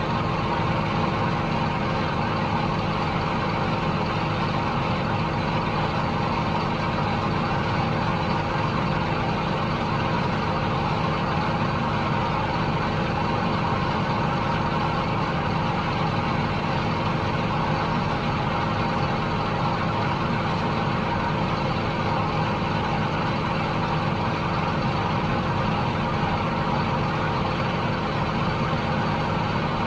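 Diesel engine of heavy harvest machinery running steadily, a constant hum and drone that holds the same pitch and loudness throughout.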